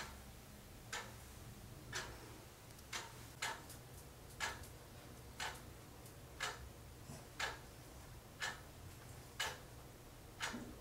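Wooden-framed Brownstone wall clock ticking, one sharp tick about every second, with a couple of extra clicks in between.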